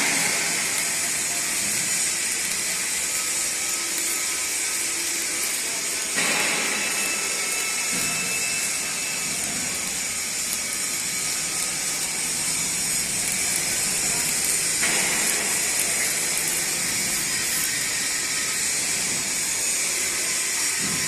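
Electric arc welding: the arc's steady crackling sizzle, with sudden fresh surges about six seconds in and again about fifteen seconds in.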